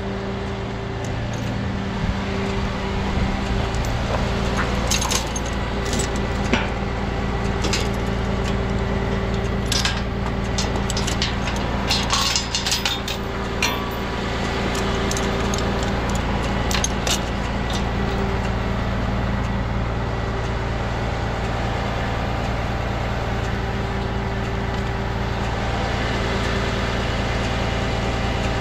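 Rollback tow truck's diesel engine idling steadily, with a run of sharp metallic clinks and rattles from about 4 to 17 seconds in.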